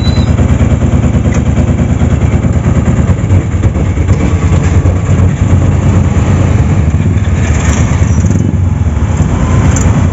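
Auto-rickshaw engine running with a loud, rapid, steady pulse, heard from inside the cabin, along with the engines of the motorcycles around it in traffic.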